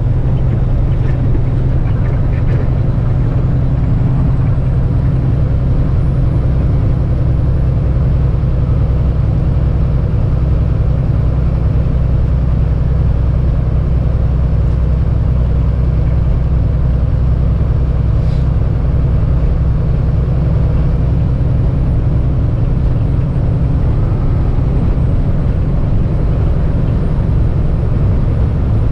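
Semi-truck's diesel engine droning steadily with tyre and road noise, heard inside the cab at steady highway speed while hauling a heavy excavator load on a lowboy trailer.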